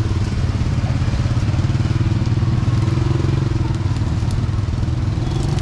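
Small engine running steadily, its pitch lifting slightly about halfway through.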